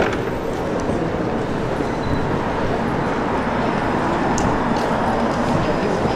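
Steady rumble of vehicle noise.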